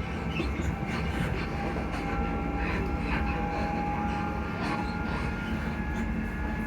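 Class 334 Juniper electric multiple unit on the move, its traction motors humming as a few steady tones over the low rumble of the running train, with one tone creeping slightly higher in the second half. Faint short ticks and rattles come through.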